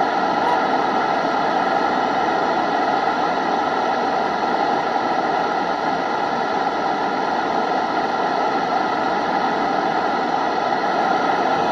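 Loud, steady hiss of radio static with no speech, cutting off abruptly at the very end.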